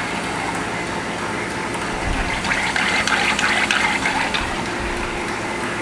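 Sinker EDM cutting steel with a copper electrode under dielectric oil at a high power setting: a steady fizzing, bubbling sound with fine crackling of the sparks, busiest around the middle, over a steady machine hum.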